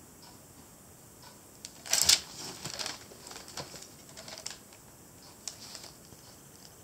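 Handling clicks and rustling while painting a small elephant figurine: a cluster of sharp clicks and rustles about two seconds in, then scattered lighter taps.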